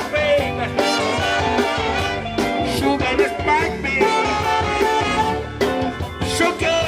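Live band led by a trumpet and saxophones playing a tune with a steady beat.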